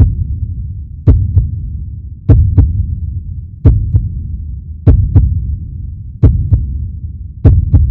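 Heartbeat sound effect: paired low thumps, a strong beat then a weaker one, repeating evenly about every 1.3 seconds over a steady low rumble.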